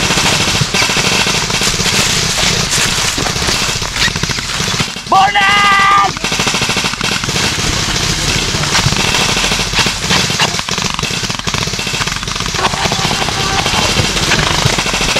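Airsoft rifles firing rapid bursts, a dense run of fast snapping shots through the whole stretch. About five seconds in, a loud high-pitched cry lasting about a second rises over the firing.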